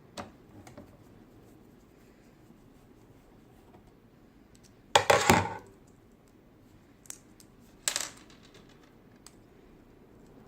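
Small hard parts being handled at a typewriter workbench: a few sharp clicks, a loud metallic clatter about halfway through, then two more short clinks.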